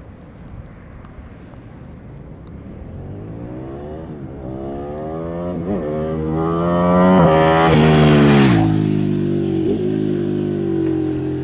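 Ducati 959 Panigale's L-twin engine accelerating toward the listener, its pitch climbing with brief dips as it shifts up. It is loudest around eight seconds in as it passes, then drops sharply in pitch and runs on lower as it moves away.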